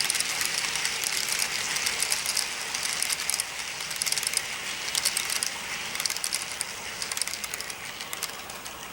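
Model train locomotive and cars without an onboard sound system, rolling along the track: a dense run of fast clicks from the metal wheels on the rails over a steady rolling hiss, fading near the end.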